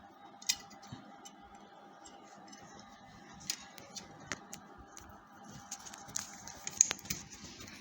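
Scattered small clicks and taps of plastic connectors and thin wires being handled and pushed onto a PC motherboard's front-panel header pins, with a light rustling in the second half.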